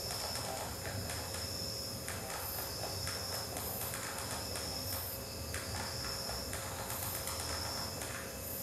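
Insect-like chirping: a shrill high tone that pulses on and off roughly once a second, over a steady low hum.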